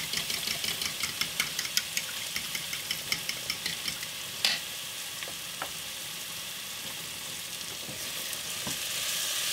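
A spoon stirring broth and marinade in a bowl, clicking against the sides about four or five times a second, over the steady sizzle of diced chicken frying in the pan. The stirring stops about four seconds in with one sharp knock, leaving the sizzle, which grows a little louder near the end.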